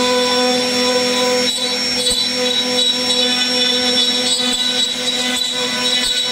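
CNC router spindle running with a steady whine as its bit carves a relief pattern into a wooden board.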